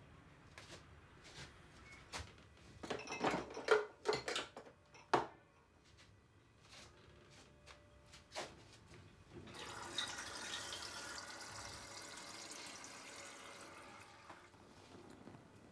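A few knocks and clinks of kitchen things being handled, then water running steadily from a wall-mounted water heater's spout into a glass for about five seconds, stopping shortly before the end.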